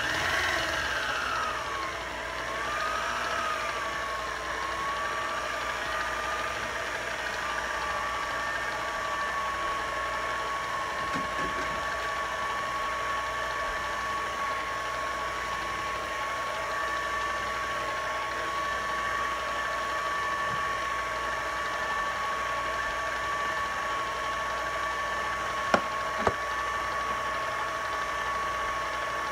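Electric mixer switching on and beating chocolate frosting. Its motor whine drops in pitch over the first couple of seconds, then holds steady. Two sharp clicks come near the end.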